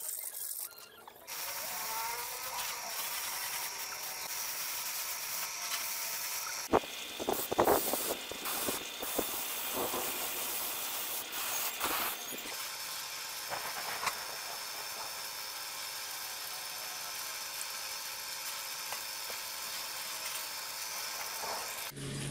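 A small power tool running steadily with a hiss, cut into several segments, with a run of sharp knocks and scrapes between about 7 and 10 seconds in.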